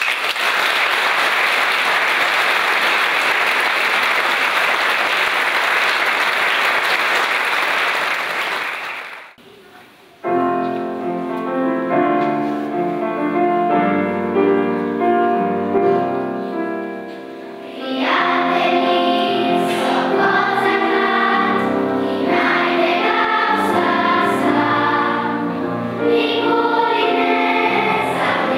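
Audience applauding for about nine seconds, then a piano introduction starts and a children's choir comes in singing with the piano about halfway through.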